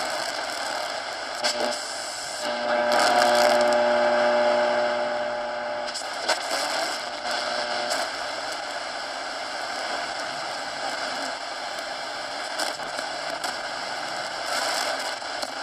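Shortwave static hissing from the AudioCrazy AC-Q1AR portable receiver's speaker as its analog tuning knob is turned between stations, with occasional crackles. About two and a half seconds in, a steady tone from a passing signal sounds for a few seconds.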